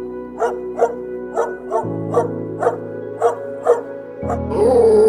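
An animal giving short, bark-like calls about twice a second over background music with steady chords. About four and a half seconds in, a louder, drawn-out call with a rising-then-falling pitch begins.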